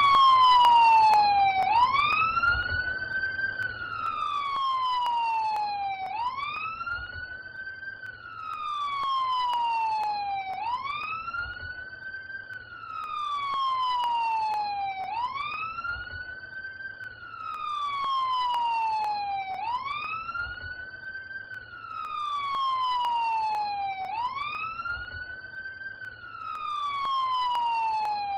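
Emergency vehicle siren wailing in a slow, even cycle. The pitch climbs for about two seconds and falls for a little longer, and the cycle repeats about every four and a half seconds.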